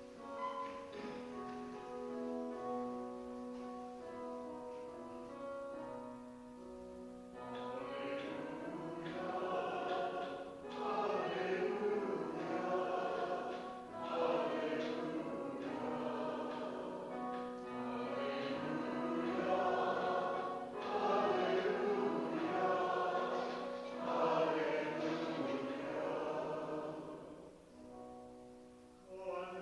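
Church music for the Gospel acclamation: an instrument plays held chords at first, and about seven seconds in a choir and congregation start singing over it in several phrases. The singing fades out near the end.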